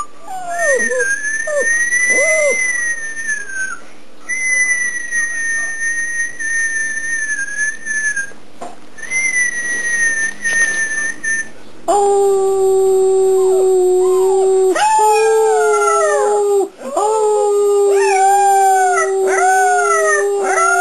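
Alaskan malamute puppy howling. First come long, thin, high-pitched notes. About halfway a lower held note starts, with a run of short falling yelps over it.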